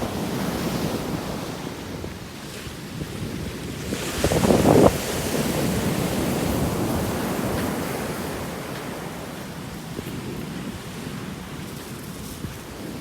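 Wind blowing across the microphone, a steady rushing noise with a strong gust about four and a half seconds in.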